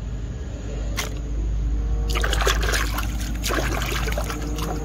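A hand sloshing and scrubbing a plastic mask in a tub of muddy water, with dense, irregular splashing from about two seconds in. A single click comes about a second in.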